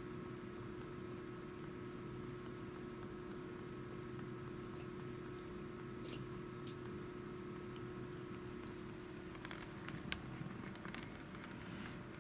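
A cat licking a frozen sherbet treat: faint wet licking with small clicks, more of them near the end, over a steady low hum.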